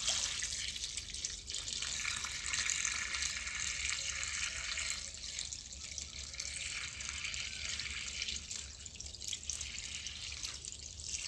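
Liquid chemical solution poured in a steady stream from a plastic bucket onto wheat straw in a plastic drum, splashing and trickling through the straw as it is soaked for mushroom substrate. The stream eases off near the end.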